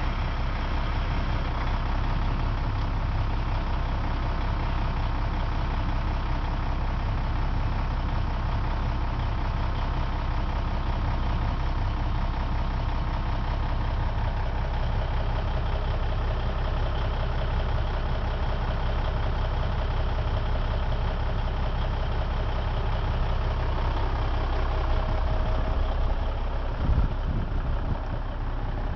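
Semi-truck's diesel engine idling steadily.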